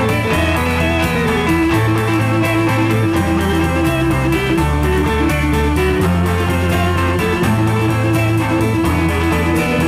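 Instrumental passage of a 1960s rock band with no singing: an electric guitar picks a repeating arpeggiated chord figure over held bass notes that change every second or so.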